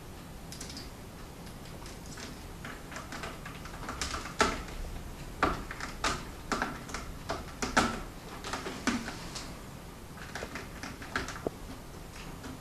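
Irregular scratching and clicking as a cat claws and scrabbles at a carpet-covered cat tree, busiest in the middle and again briefly near the end.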